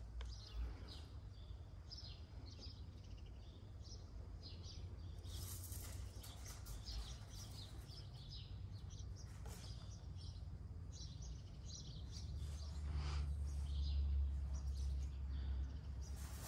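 Small birds chirping in short, scattered calls, over a steady low rumble that grows stronger in the last few seconds.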